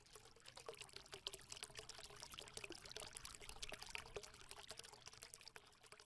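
Faint trickling of liquid, a dense run of tiny irregular ticks and splashes, fading out near the end.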